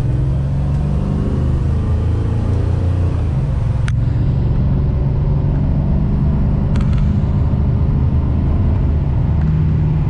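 The 1968 Charger's swapped-in 5.7 Hemi V8 running steadily with a deep, even drone, its note shifting slightly about three seconds in.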